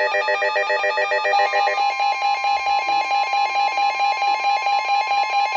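Weather radio sounding a tornado warning alert: rapid electronic alarm beeps that switch to a different beeping pattern about a second and a half in, over a steady single-pitch warning alarm tone that starts at the same moment.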